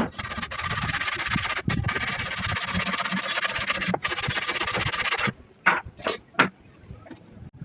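Wood being sawn: a steady hiss of cutting for about five seconds that stops suddenly, followed by three sharp knocks.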